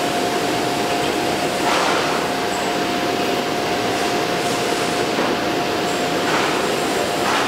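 Thermoforming machine running with a steady mechanical hum and a constant high whine as its lower platen slowly rises.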